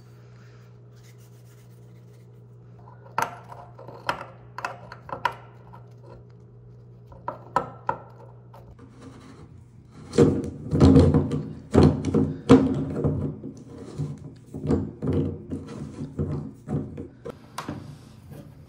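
Metal hand tools knocking, prying and scraping at an old tub drain flange: a run of loud irregular knocks and rubs that starts about halfway in. Before it there is a steady low hum with a few scattered clicks.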